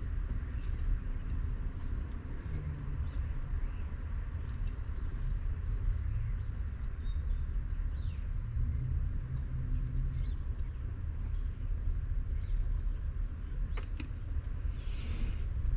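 Steady low rumble with a few brief bird chirps scattered through it and occasional small clicks.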